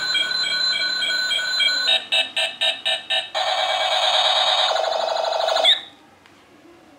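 Battery-powered toy gun playing its electronic sound effects: warbling bleeps, then a quick string of pulsed beeps about two seconds in, then a buzzing rapid-fire tone that cuts off suddenly near the end.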